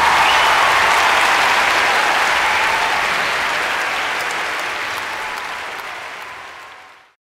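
Audience applauding after a choir performance, fading gradually over several seconds and then cutting off abruptly about seven seconds in.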